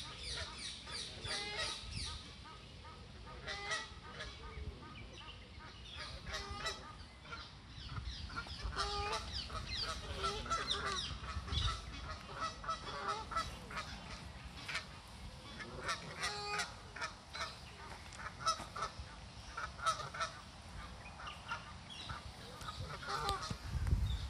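Canada geese honking, many short calls one after another, with a low rumble on the microphone near the end.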